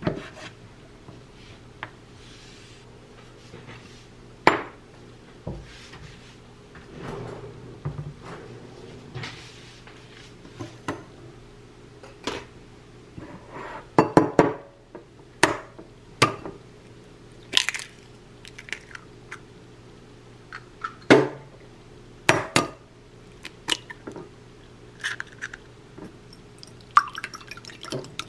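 Kitchen food-prep sounds: scattered knocks and clinks of a knife, dishes and a glass bowl, under a faint steady low hum. Near the end, quick light clinking as egg is beaten with a small metal whisk in the glass bowl.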